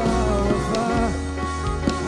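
Live church worship band playing between sung lines: held chords over a steady bass, with scattered drum hits.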